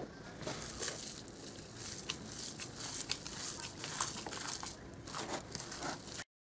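Gloved hands kneading raw minced-meat mixture in a bowl: irregular wet squishing and crinkling with small clicks, cutting off suddenly near the end.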